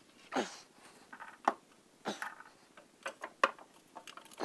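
A screwdriver scraping and knocking inside a grey plastic drain pipe as dirt is cleaned out of it: a string of short, irregular clicks and scrapes, one with a falling pitch about half a second in.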